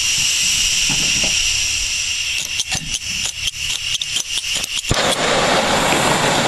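Hand-held propane torch being lit: about a dozen quick sharp clicks over two seconds, then, about five seconds in, a sudden steady loud hiss as the flame burns. Insects chirp steadily in the background.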